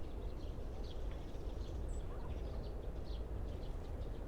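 Many small birds chirping, short quick calls overlapping one another, over a steady low rumble.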